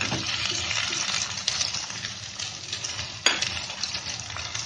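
Chicken pieces and browned onions sizzling in a nonstick frying pan while a spatula stirs and scrapes them, the chicken just starting to brown. One sharp knock about three seconds in.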